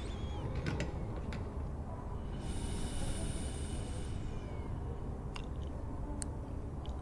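Library ambience track: a steady low rumble with scattered faint clicks, and a brief soft rustle from about two and a half to four seconds in.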